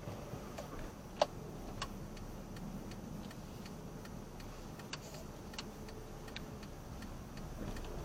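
Car turn-signal indicator ticking at a steady, even rate inside the cabin, over low road and engine noise.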